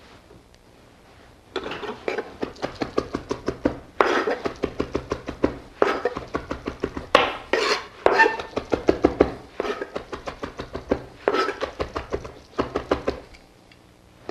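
Chef's knife chopping fresh thyme leaves on a cutting board: quick knocks of the blade, about four or five a second, in several runs with short pauses, starting about a second and a half in.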